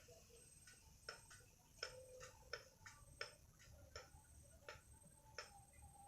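Near silence with faint, sharp ticks, roughly three a second at uneven spacing, over a faint high pulsing chirp.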